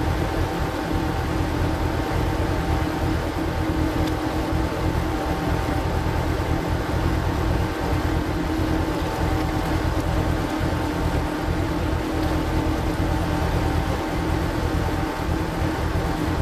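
Single-cylinder diesel engine of a power tiller running steadily under load, driving a screw (cone) log splitter through oak firewood, sped up to double speed.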